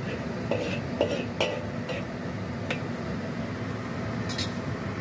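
Spatula knocking and scraping against a wok while stirring sliced carrots simmering in a little water: a run of short clinks through the first three seconds and one brief scrape near the end.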